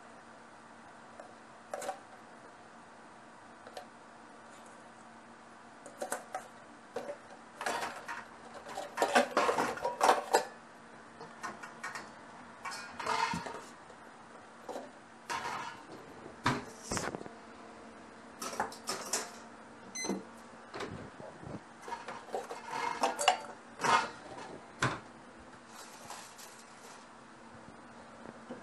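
Kitchen clatter: dishes, pots and utensils being knocked, handled and set down in irregular bursts, busiest about eight to ten seconds in, over a faint steady hum.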